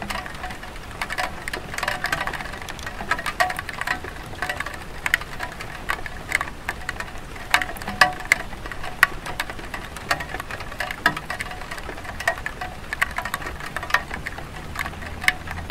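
Light rain on a clay tile roof: a steady hiss with many irregular sharp drops tapping and dripping.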